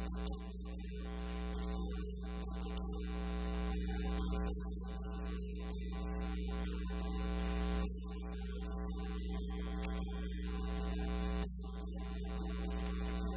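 Steady electrical mains hum with a buzzy ladder of higher overtones and hiss, and no speech heard over it; its level drops slightly twice.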